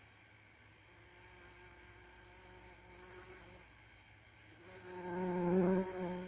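Bumblebee buzzing in flight: a low hum with overtones, faint at first, then growing loud about five seconds in and falling away near the end as it passes close.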